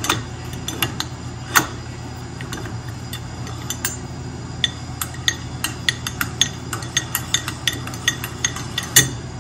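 Metal clutch parts of a Polaris Sportsman ATV clicking and clinking as they are fitted together by hand on the clutch shaft. The taps are light and irregular, with sharper knocks at the start, about a second and a half in and near the end, over a steady low hum.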